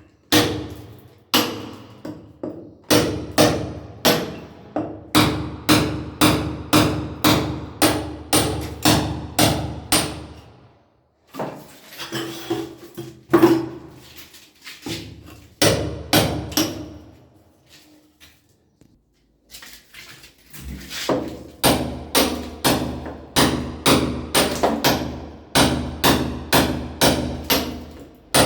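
Hammer blows in steady runs of about two to three strikes a second, broken by short pauses, with a faint ringing tone under the first run.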